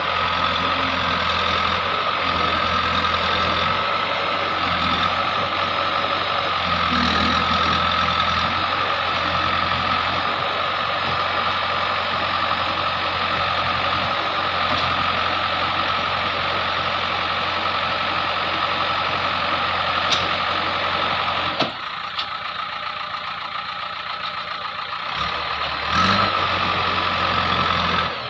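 JCB 3DX backhoe loader's diesel engine running steadily while it digs, with a steady high whine over the engine note. About three-quarters of the way through there are a couple of sharp knocks and the deep engine note drops to a lower level, with another knock near the end.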